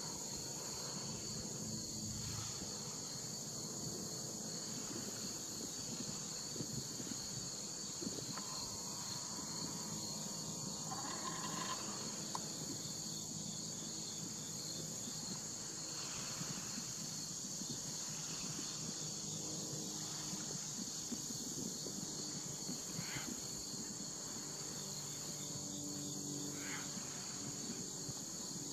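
Steady chorus of summer insects: a continuous high-pitched whine over a slightly lower, pulsing trill, with a low hum underneath.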